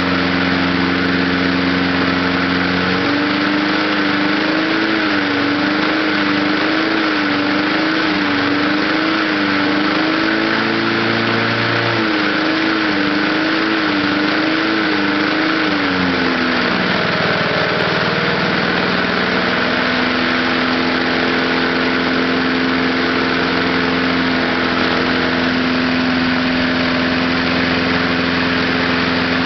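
Lawnmower engine running on gasoline vapor drawn through a wick from a steel ammo box. Its speed rises about three seconds in and wavers up and down, then drops back around the middle and settles into a steady run.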